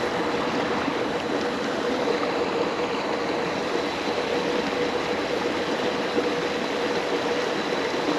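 Stream water rushing in a steady, even wash.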